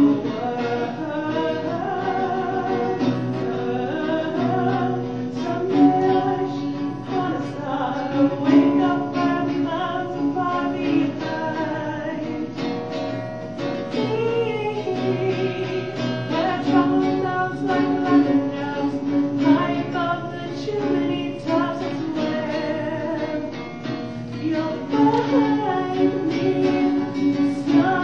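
Singing accompanied by a strummed acoustic guitar, a song with a melody that rises and falls over steady chords.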